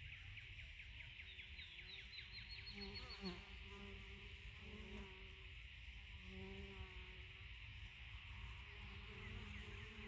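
Honeybees at a hive entrance buzzing faintly as they fly in and out, a low hum that comes and goes, with one bee's pitch dropping as it passes about three seconds in. Behind it runs a steady high chirring of insects, and a short run of rising chirps sounds about a second and a half in.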